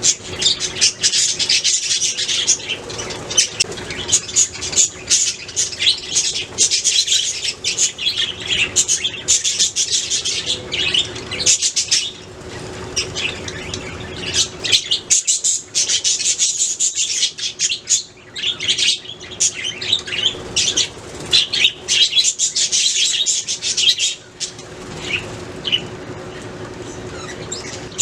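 A group of budgerigars chirping and chattering in a dense, continuous run of short high chirps and warbles, with a faint steady hum underneath.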